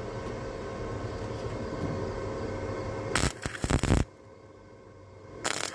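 Flux-core wire welder arc crackling and hissing through a bead, louder for the last second before it stops about four seconds in, then a short second burst of welding near the end.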